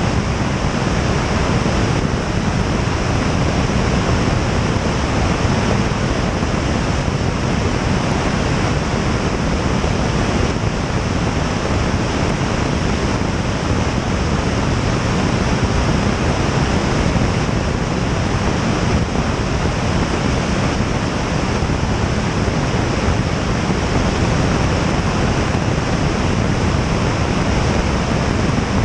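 Steady rush of airflow over a camera mounted outside on the tail of a Piper Tomahawk light aircraft in flight: an even noise with no clear engine note standing out.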